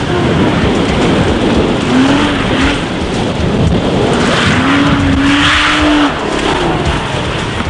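Rally car engine revving hard, its pitch rising and falling, over a steady rush of noise.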